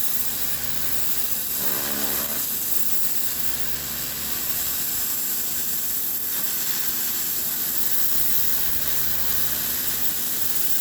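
Stihl pressure washer spraying: a steady hiss of the water jet over a low hum of its motor and pump, with a brief pitched sound about two seconds in.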